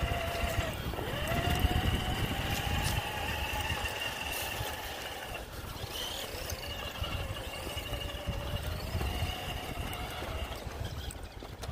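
Electric motor and gearbox whine of RC scale crawlers driving on a dirt trail, the pitch rising and falling with the throttle, over a low rumble.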